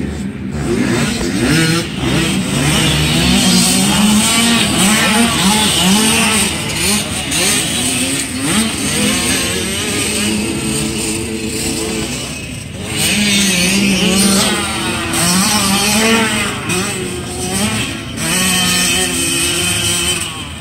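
Several motocross dirt bikes revving on the track, their engine notes rising and falling and overlapping as the riders work the throttle through corners and jumps.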